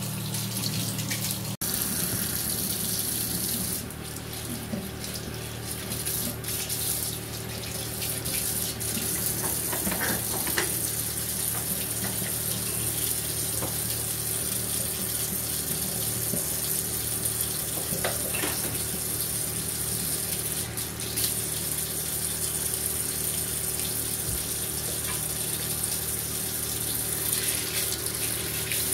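Water spraying steadily from a handheld shower head onto a small dog in a bathtub as he is wetted and washed.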